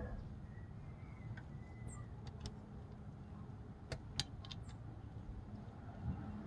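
A few light clicks and taps of small engine parts and bolts being handled, over a low steady hum.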